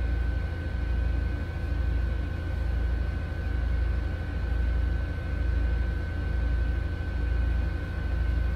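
Steady low mechanical hum that swells and fades about once a second, with a thin steady high whine above it.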